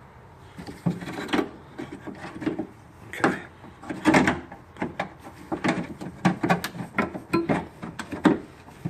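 Irregular clicks, clunks and light rattles of a car trunk latch being worked loose by hand and pulled from the trunk lid after its bolts are out.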